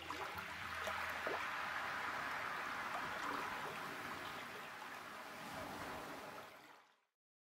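Steady rushing, hiss-like noise like running water, fading out to silence near the end.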